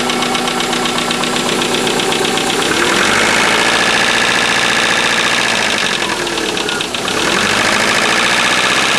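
Subaru EJ25 flat-four engine running with a rhythmic knock, which the owner suspects is either piston slap or a worn rod bearing. The engine note rises about three seconds in and dips briefly about seven seconds in.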